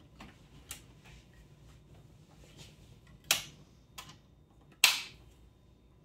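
Hinged power supply of a Dell Precision 3630 tower being pressed down and seated in the steel chassis: a few sharp metal clicks and clunks, the two loudest a little over three seconds in and near five seconds in.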